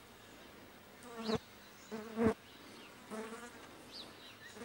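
A flying insect buzzing close to the microphone, swelling and fading as it passes three times in quick succession.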